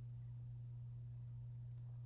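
Faint, steady low hum over quiet room tone, with no other events.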